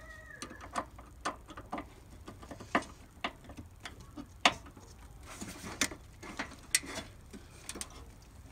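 Irregular small metallic clicks and taps from machine screws and little nuts being handled and fitted to bolt a boost solenoid in place. A brief squeak right at the start.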